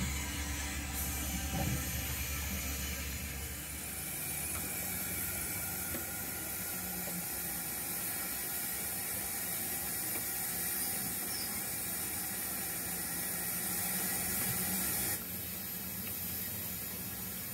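0 gauge model train running on the layout: a rake of model goods wagons rolling over the track, heard as a steady hissing, rattling mechanical noise. A low hum under it stops about four seconds in.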